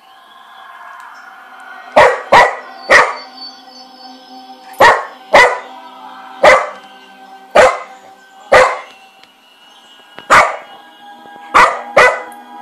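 Cocker spaniel barking at a plastic Coca-Cola bottle in short, sharp single barks, about eleven in all at irregular intervals, some in quick pairs.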